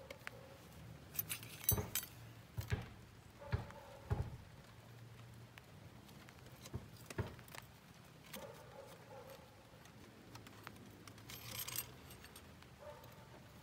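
Metal clinks and taps of snap-ring pliers, a steel snap ring and a washer being fumbled onto a tractor's front axle spindle. Irregular sharp clicks come every second or so, with a jingly rattle of metal near the end.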